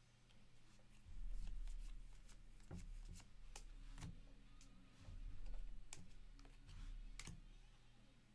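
Hands sorting through a stack of baseball trading cards, the cards sliding and clicking against one another in soft, irregular flicks, with a faint steady hum underneath.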